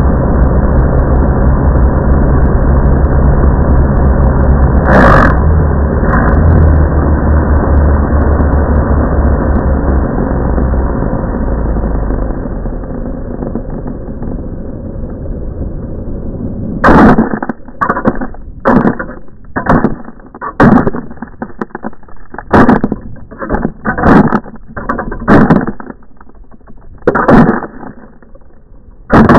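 Continuous rolling rumble with a steady low hum from a small camera-carrying rig running fast and low over a concrete floor, fading away after about twelve seconds. From about seventeen seconds in, a dozen or so sharp knocks and bumps follow at irregular intervals as the camera tumbles.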